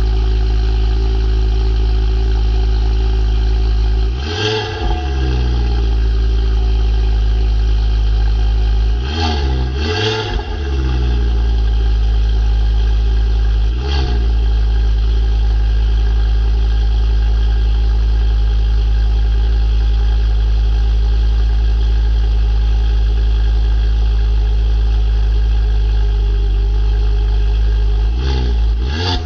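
Ford Focus ST's 2.5-litre turbocharged five-cylinder engine idling after a cold start, heard at the tailpipe through a de-cat pipe and the stock exhaust. The throttle is blipped in about six short revs, each a quick rise and fall: one, then a close pair, then a very brief one, then a long steady idle before a last pair near the end.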